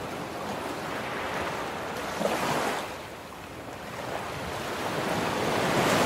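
Surf washing in: a rushing noise that swells and fades about two and a half seconds in, then builds again near the end.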